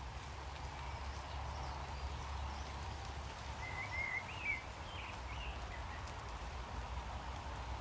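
Steady rain falling on the leaves of a tree canopy, with a short bird song phrase of a few quick whistled notes about halfway through.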